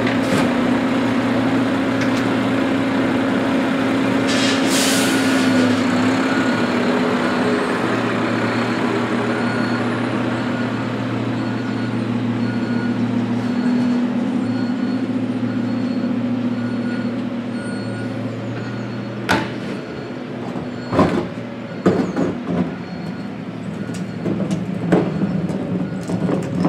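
Side-loader garbage truck's diesel engine running steadily, with a short hiss about five seconds in. The engine fades away after about eighteen seconds, and a few sharp knocks follow.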